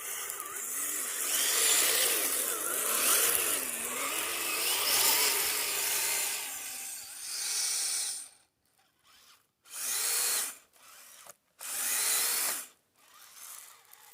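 Kyosho Blizzard RC snow vehicle's electric motor and track drive whining under throttle, the pitch wavering up and down with speed. After about seven seconds it runs in short separate bursts of throttle with pauses between.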